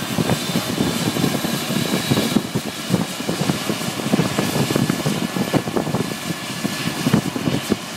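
Air ambulance helicopter running on the ground before take-off: a steady high turbine whine over a heavy, irregular low buffeting.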